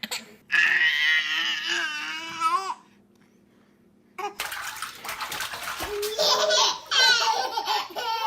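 A baby's high-pitched squeal lasting about two seconds, a brief pause, then a baby laughing and babbling over splashing bath water.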